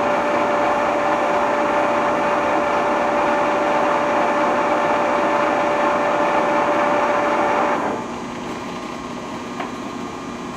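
Harrison 15 x 40 engine lathe running at 115 rpm spindle speed, a steady gear-driven whine over mechanical noise. About three-quarters of the way through the whine stops and the sound drops to a quieter steady hum, with one small click near the end.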